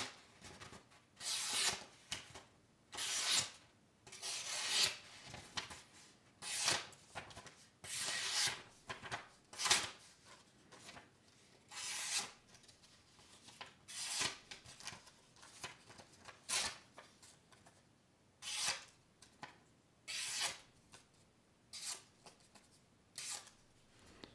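A freshly sharpened Gerber folding knife slicing through a sheet of printer paper: about a dozen short papery swishes, one every second or two, with a little rustle of the paper between cuts.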